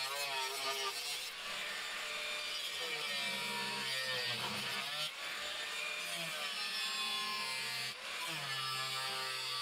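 Angle grinder with a cutting disc slicing through 2 mm steel plate. The motor's pitch sags and recovers several times as the disc is pressed into the cut, with short breaks between passes.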